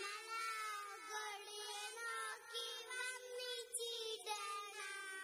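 A group of four young girls singing a song together into microphones.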